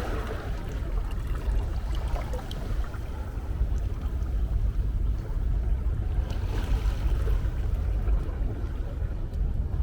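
Ocean waves washing in: a steady deep rumble of surf, with a swell of hiss as a wave breaks at the start and another about two-thirds of the way through.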